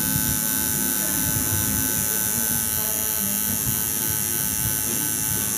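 Electric tattoo machine buzzing steadily while the needle works ink into the skin of the chest.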